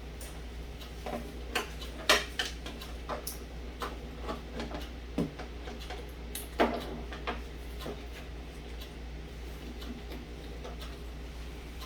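Scattered small clicks and taps of plastic connectors and cables being handled as LED strip lights are hooked up to power. The sharpest knocks come about two seconds in and again about six and a half seconds in, over a steady low hum.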